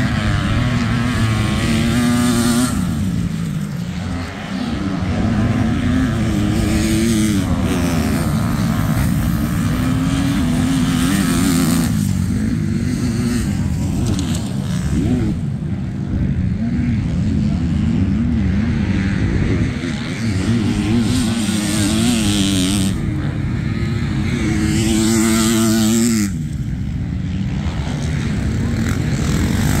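Motocross bike engines revving and running on a dirt track, their pitch rising and falling over and over as the riders open and close the throttle.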